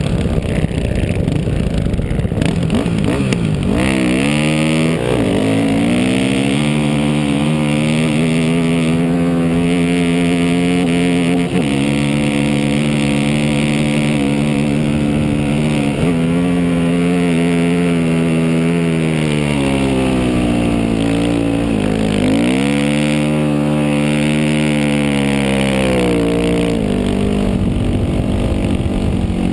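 1999 Yamaha WR400F's four-stroke single-cylinder engine under full throttle, climbing a steep sand dune. About four seconds in it revs up hard, then holds high revs with a few sudden steps in pitch at gear changes. It dips and revs up again about two-thirds of the way through, then eases off near the end.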